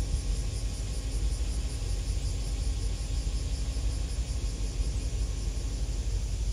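Wind buffeting the microphone in low, uneven rumbles, with a faint steady hum underneath that fades out near the end.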